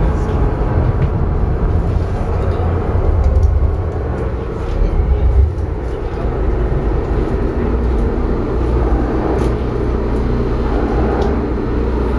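Steady low drone of a high-speed passenger boat's engines and hull, heard from inside the passenger cabin, swelling briefly a few seconds in.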